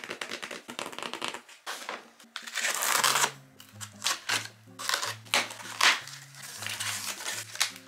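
Cardboard shipping box being opened: scraping and rustling on the cardboard, packing tape being cut with scissors, and the flaps pulled open, with sharp crackles. Soft background music with a low bass line comes in about three seconds in.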